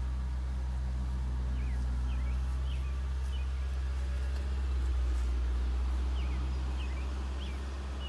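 1997 Ford Thunderbird LX engine idling steadily, a little louder about halfway through. Birds chirp in two short spells, a couple of seconds in and again near the end.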